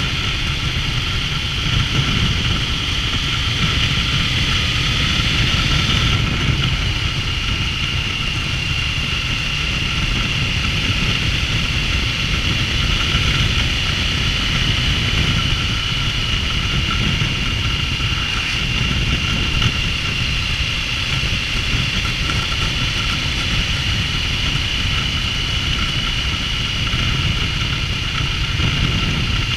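Triumph Tiger 900's three-cylinder engine running steadily under way, with road and wind rumble. A thin high whine steps slightly lower in pitch about six seconds in.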